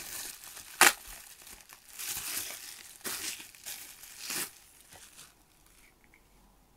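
Clear plastic packaging bags crinkling in several bursts as a plastic figure is worked out of them by hand, with one sharp, loud crackle about a second in. The crinkling stops about five and a half seconds in.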